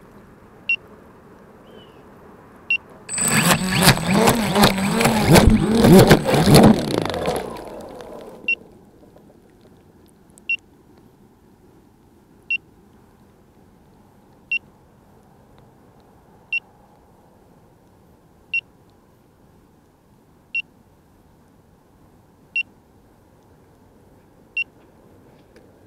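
A crashed FPV quadcopter lying upside down: its motors spin up in uneven surges for about five seconds, starting about three seconds in, then die away. Short high beeps sound every two seconds throughout.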